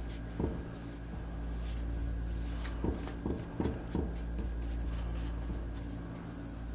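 Steady low hum with a handful of light knocks and taps, most of them bunched together from about three to four seconds in.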